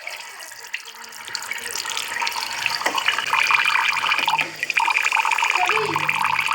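Running water, a crackly splashing trickle that grows louder about two seconds in.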